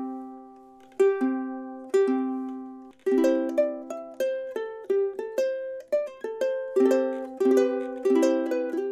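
Loog soprano ukulele, freshly tuned to standard G-C-E-A, played for the first time: a few strummed chords left to ring about a second apart, then from about three seconds in a quicker picked pattern of notes. It sounds in tune, clear and nice.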